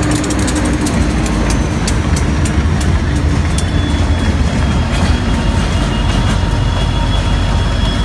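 Diesel freight locomotives passing close by: a steady deep engine rumble with quick clicking of wheels over rail joints, the clicks thinning out after about three seconds. A faint high whine comes in about halfway through.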